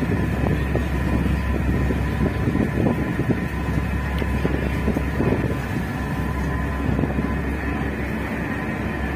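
Steady low drone of a ro-ro passenger ferry's engines under way, with a faint steady whine above it and wind buffeting the microphone on the open deck.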